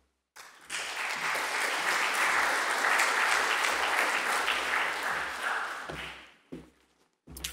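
Audience applauding, starting about half a second in and dying away around six seconds in, followed by a couple of light knocks.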